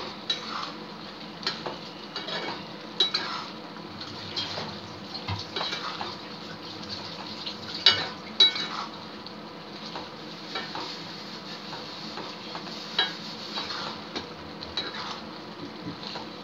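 Metal spatula stirring prawn gravy in a kadai, with irregular scrapes and clinks against the pan over a steady sizzle of the cooking gravy. The loudest strokes come about eight seconds in.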